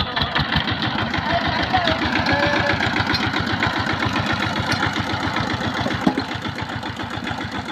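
Single-cylinder diesel engine of a two-wheel power tiller running with a rapid, even beat, pulling a load of rice sheaves through deep mud.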